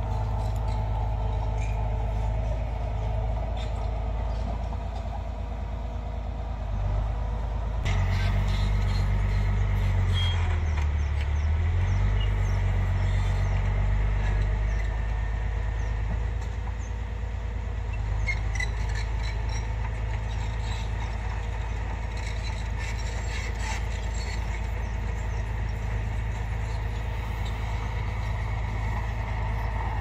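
Crawler bulldozer's diesel engine running steadily, with intermittent metallic clanks from its tracks. About eight seconds in the engine note gets louder, dips and rises again over several seconds.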